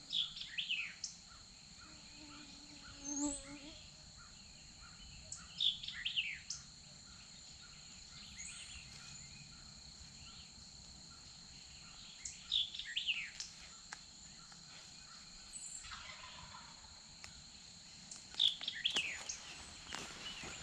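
Woodland birdsong: a songbird repeats a short song of quick falling notes about every three seconds, over a steady high-pitched insect drone.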